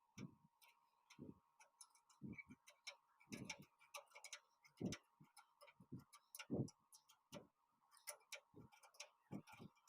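Irregular light clicks and knocks of hand tools on metal, about one or two a second, as the air conditioner's replacement fan motor is tightened down, with a faint steady tone underneath.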